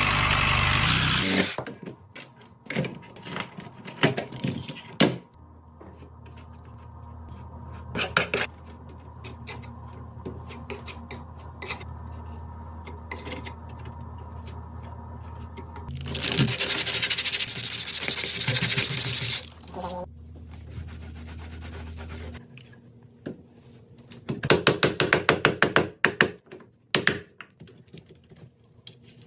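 Handling sounds from working on a door lock: scattered knocks and scrapes over a steady low hum, a loud rushing noise for about four seconds midway, and a quick run of rapid clicks near the end.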